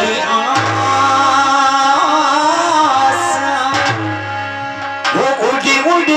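Live folk devotional singing into a microphone over an amplified harmonium, with drum accompaniment; the voice holds long melodic notes with ornamented bends.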